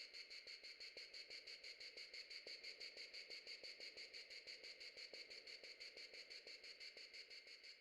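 Synthetic 'insect stopwatch' sound effect: a faint, rapid, evenly spaced insect-like chirping pulse, several beats a second, with light ticks underneath like a stopwatch.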